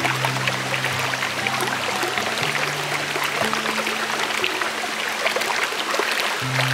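Shallow stream running over rocks: a steady rush of water with small trickling crackles. Soft, held low background-music notes sound underneath, changing pitch a few times and dropping out for about two seconds near the end.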